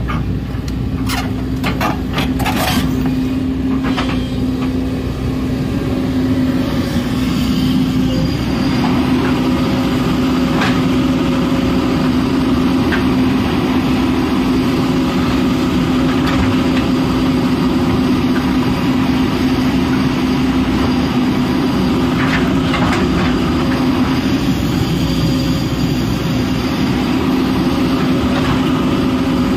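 Diesel engine of a JCB JS220 tracked excavator running steadily under working load, a constant hum. Several sharp knocks in the first few seconds and a few single ones later on.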